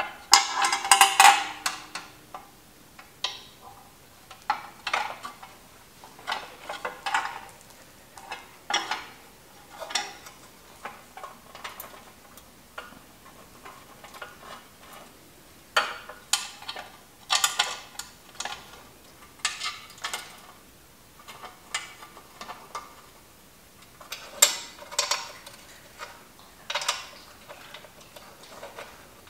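Metal clinking and rattling as a chrome motorcycle front fender is handled and fitted between the fork legs: a loud clatter near the start, then scattered short clinks every second or so.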